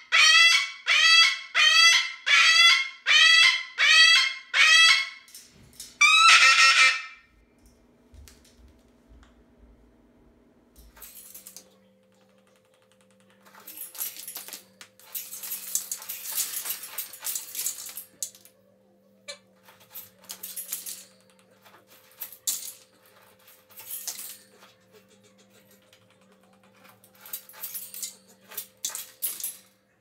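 Moluccan cockatoo screaming: a rapid run of loud, identical shrieks about two a second for some five seconds, then one longer scream about six seconds in. After that, quieter scratchy noise comes and goes over a faint steady hum.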